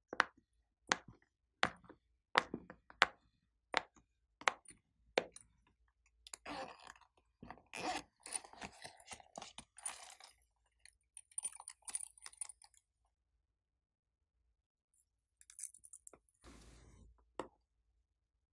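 Bubbles of a silicone pop-it fidget toy pressed one by one, a sharp pop about every three-quarters of a second, eight in all. Then crackly rubbing and squeaking as the soft silicone is squeezed and folded in the hands, and a brief rustle and a tap near the end.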